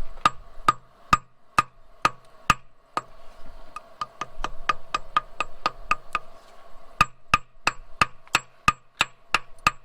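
Hammer tapping steadily on metal, with a ringing note under the strikes. The strikes come about two a second, quicken to about three a second partway through and get louder near the end.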